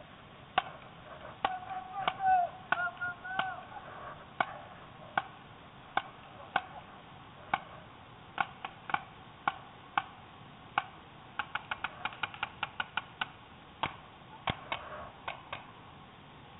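Paintball markers firing: single sharp pops at uneven intervals, then a quick string of about six shots a second around twelve seconds in.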